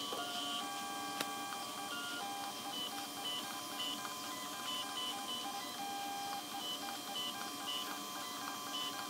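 Creality CR-6 SE 3D printer auto-levelling its bed: the stepper motors whine in short stepped tones, starting and stopping over and over as the print head moves from one probe point to the next.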